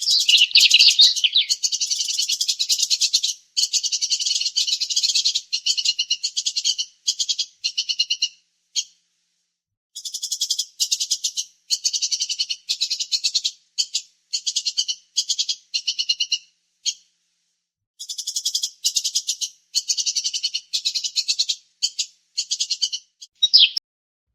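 Bird song: rapid, buzzy high-pitched trills repeated in three phrases, each a run of bursts that get shorter and further apart, with short silent gaps between phrases.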